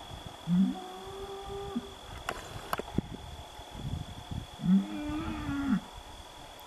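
A bull bellowing twice, each a low call about a second long that rises in pitch and holds, some four seconds apart. It is the posturing of bulls sorting out their pecking order.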